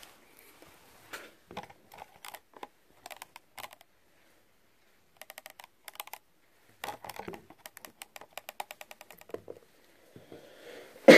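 Small acrylic herb grinder being handled and twisted, its plastic parts giving scattered light clicks and then quick runs of rapid clicking. A loud breathy sound comes right at the very end.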